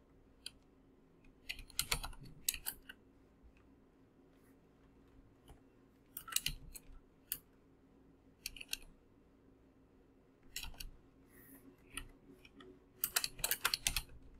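Computer keyboard being typed on in short bursts of keystrokes with pauses between them, the longest, busiest run near the end.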